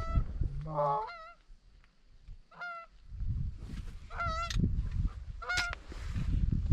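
Goose honks: about half a dozen short, separate honks a second or so apart, with a lower, quicker run of calls about a second in. A low rumble comes and goes underneath.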